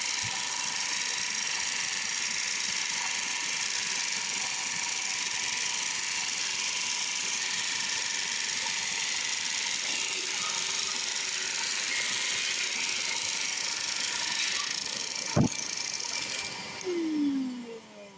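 Ryobi 1632 drum sander running with its shop vac, sanding a white ash board: a steady, loud hiss with a few steady tones. About fifteen seconds in there is a sharp click, and the noise stops. Near the end a motor winds down, its pitch falling.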